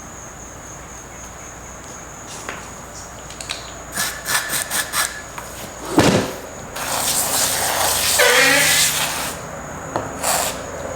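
Hands working on a mower tire: a few clicks and a sharp knock, then about two and a half seconds of hissing with squeaky rubbing in it, and a couple more clicks near the end.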